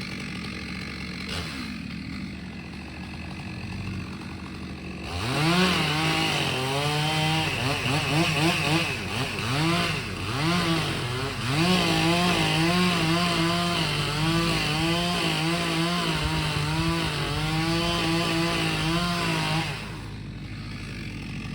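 Two-stroke chainsaw idling, then from about five seconds in revving up and down several times before running steadily at high speed as it cuts wood. It drops back off near the end.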